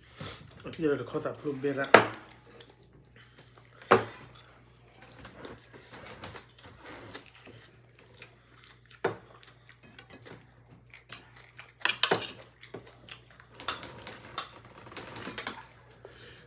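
Tableware clinking during a meal: a few sharp clinks of spoons against ceramic bowls and plates, the loudest about two seconds in, with softer handling sounds between. A short voice is heard about a second in.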